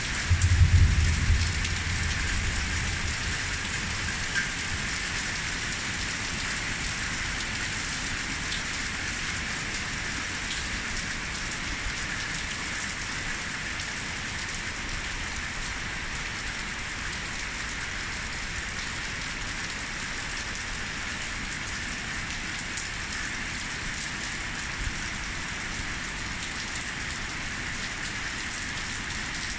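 Heavy downpour: a steady hiss of rain falling on the ground and nearby surfaces. A brief low rumble comes about a second in and is the loudest moment.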